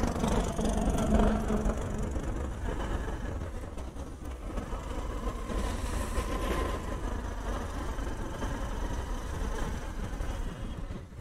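Motorcycle riding in city traffic: the bike's engine running under a steady low rumble of road and wind noise, with other vehicles passing.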